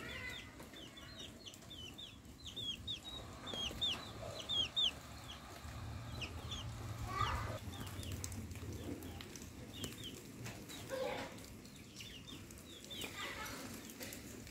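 Chickens clucking, with quick runs of short high chirps that are thickest and loudest in the first few seconds.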